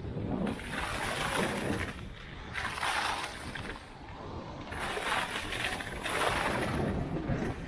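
Skis scraping over packed snow through a series of turns, each turn a swelling hiss about every two seconds, with wind rumbling on the microphone.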